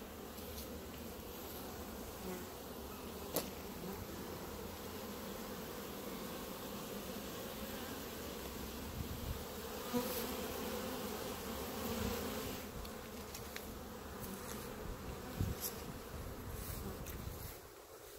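Honeybees buzzing in flight around a hive entrance, a steady drone that grows louder around the middle and falls away shortly before the end. A few sharp clicks stand out above it.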